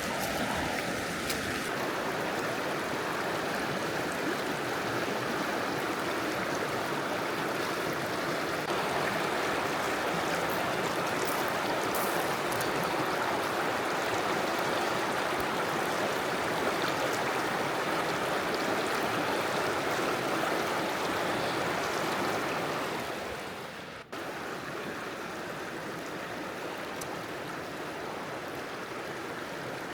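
A river flowing, a steady rushing of water. It drops a few dB about 24 s in and runs on a little quieter.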